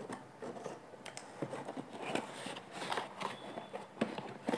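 A packet of dinnerware being opened by hand: irregular rustling and crinkling of packaging with a few light clicks and knocks.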